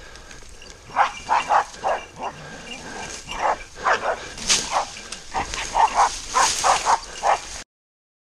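Hunting dog barking over and over, baying at a wild boar holding up in dense cover. The barks start about a second in, come in quick runs, and cut off suddenly near the end.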